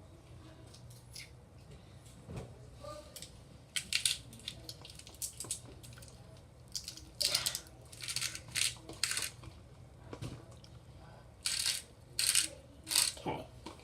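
Irregular clinks and short scrapes of a bowl being worked with a hard tool, in several clusters, as a soap-and-salt slime mixture is stirred.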